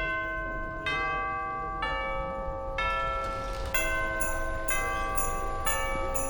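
Instrumental music in bell-like chime tones, with a new ringing chord struck about once a second at a steady, slow tempo.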